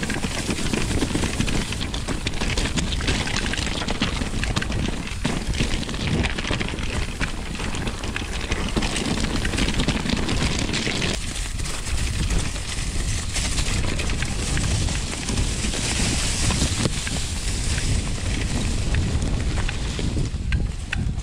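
Mountain bike riding down a dirt trail: continuous wind buffeting the microphone over tyre noise on the ground and a constant light rattling of the bike.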